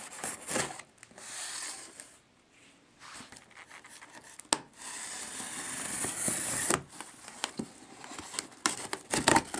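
A blade slitting clear packing tape along the seam of a cardboard box, with scratching and rubbing against the cardboard. A sharp click comes about four and a half seconds in, followed by a steady slit lasting a little under two seconds, and louder scratchy rustles near the end.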